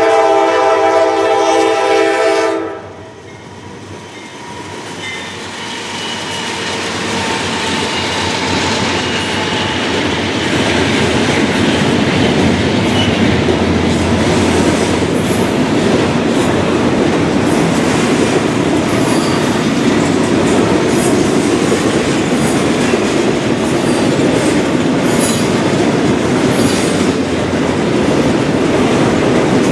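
Norfolk Southern freight train: the diesel locomotive's air horn sounds a chord that cuts off about three seconds in. Then the train's rumble builds over several seconds, and the cars roll past with steady wheel noise and clickety-clack over the rail joints.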